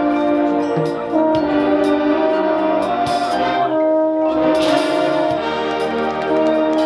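Marching band playing: the brass section holds sustained chords over steady percussion strokes, with a louder, brighter hit about four and a half seconds in.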